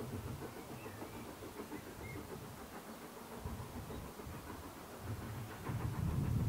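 LSWR S15 No. 506 steam locomotive working a train in the distance, its exhaust beats coming as a steady chuffing rhythm that grows louder about five and a half seconds in as it approaches.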